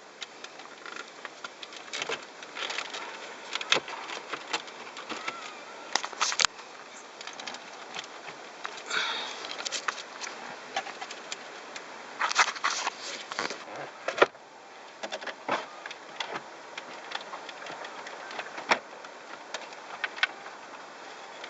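Hands working a car's plastic dashboard trim and stereo unit back into place: scattered clicks, taps and short scraping rustles, with a sharp knock about fourteen seconds in.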